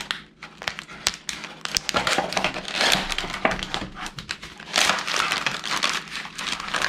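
Plastic MRE flameless ration heater pouch crinkling and rustling as it is handled and pushed into a cardboard sleeve, an irregular run of crackles and sharp clicks.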